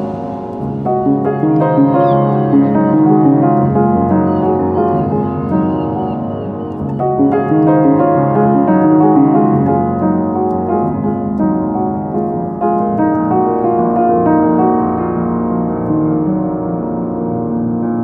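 Instrumental music led by piano, with many overlapping sustained notes and a steady stream of new notes.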